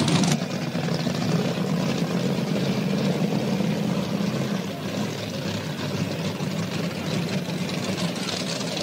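Supercharged burnout-truck engine idling steadily with a low rumble, just after its burnout.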